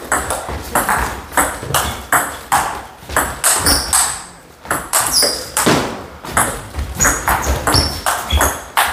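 Table tennis rally: the ball clicks sharply off paddles and table in quick alternation, two or three strikes a second, with a short lull about halfway through.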